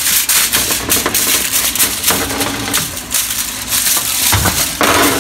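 Aluminium foil crinkling and crackling as it is handled close to the microphone.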